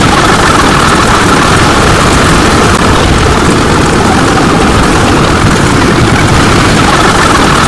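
Loud, steady engine-like rumble with hiss across the whole range, unchanging throughout.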